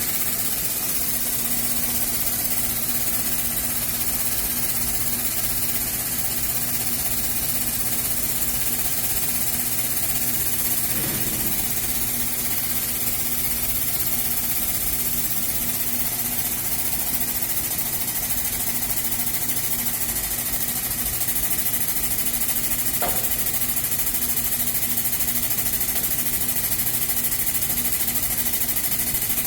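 Hydraulic break-test press running steadily with an even mechanical hum, its pump loading a welded T-joint coupon to break it.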